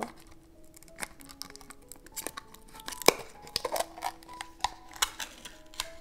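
The inner seal of a plastic jar of toner pads being peeled and torn off: a run of crinkles, small tearing sounds and sharp clicks, the loudest about three seconds in. Soft background music plays underneath.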